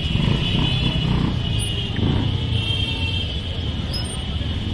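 Motorcycles and a car moving slowly along a busy street, engines running, with music playing over the traffic.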